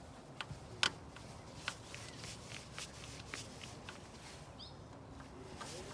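Scattered light clicks and knocks from hands handling small engine-bay parts and tools, irregular rather than rhythmic, the sharpest click coming just under a second in.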